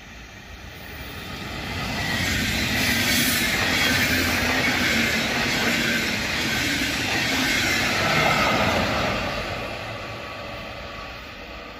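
Deutsche Bahn Intercity passenger train passing at speed: the rumble and rail noise of its coaches on the track. The sound swells over the first couple of seconds, stays loud for several seconds, then fades away.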